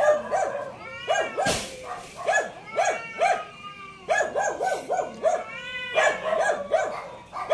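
Animal calls: runs of short yelps that rise and fall, several a second, broken by a few longer arching cries. A brief loud rush of noise comes about a second and a half in.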